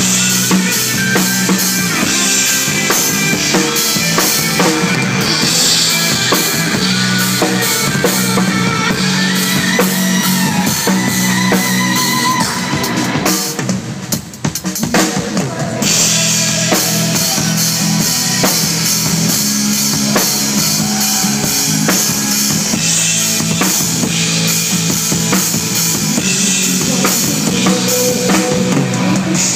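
Rock band playing live at a sound check, drum kit to the fore with bass drum and snare under the full band. The band thins out briefly about halfway through, then comes back in.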